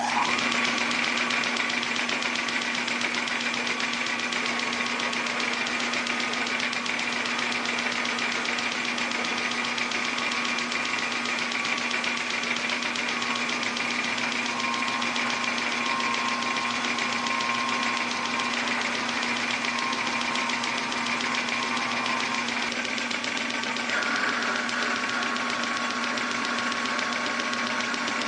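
Metal lathe just switched on and running steadily, with a steady low hum and a machining hiss. About 24 s in the sound shifts slightly as a twist drill cuts into the spinning steel workpiece.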